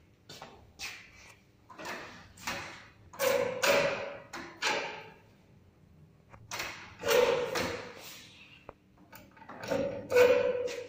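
Irregular knocks and clunks, about a dozen, each sharp at the start and fading quickly, from handling the starter and rheostat controls on a lab bench.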